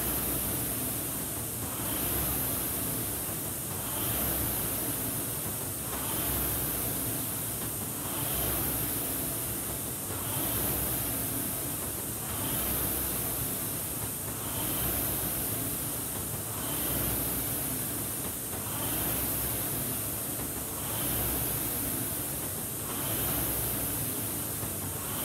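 Concept2 indoor rowing machine's air-resistance flywheel whooshing as it is driven through hard strokes. It swells with each drive and fades on the recovery, in a steady rhythm of about one stroke every two seconds (28 strokes a minute).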